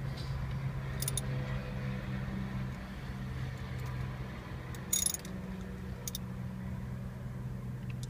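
A hand ratchet tightening the bolts that clamp a short-throw shifter handle to the shift stub: a few short metallic clicks about a second in and again around five seconds, over a steady low hum.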